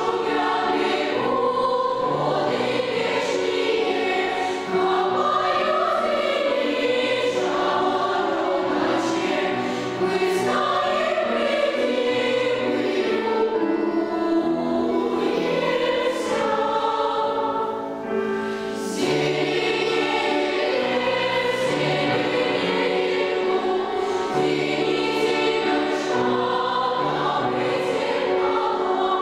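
Children's choir singing a sustained piece in several parts, accompanied by a piano that carries the low notes.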